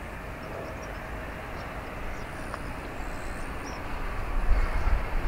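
Steady rumble of an Airbus A350-900 airliner taxiing, with deep low thuds building near the end.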